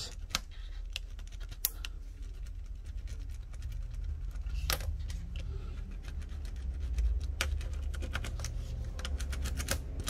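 A pen tip pressed and rubbed over the wrinkled foil wrapping of a smartphone battery to smooth it flat, giving scattered light clicks and crinkles that come thicker in the last few seconds. A low steady hum runs underneath.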